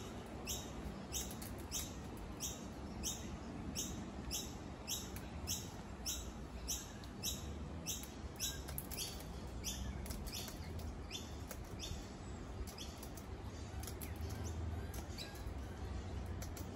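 Short, high chirps repeating a little under twice a second, thinning out and becoming irregular about nine seconds in, over a steady low rumble.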